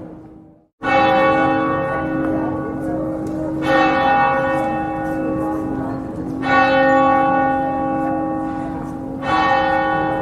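A church bell tolling slowly: four strokes about three seconds apart, each ringing on under the next over a steady low hum. It follows a brief drop to silence.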